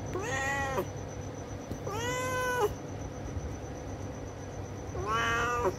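Adult domestic cat meowing three times, each call about two-thirds of a second long, rising in pitch at the start and then held.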